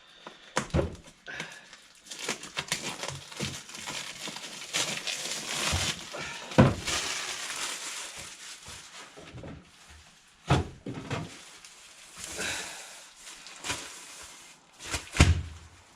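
Cellophane wrapping being cut with a retractable knife and pulled off a boxed socket set, crinkling and rustling, with several sharp knocks from handling the box, the loudest about halfway through.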